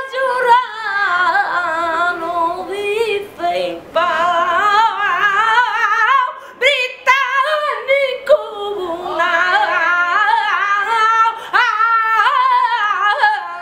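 A woman singing flamenco cante unaccompanied, in long held phrases whose pitch wavers and turns in ornaments, broken by a few short breaths.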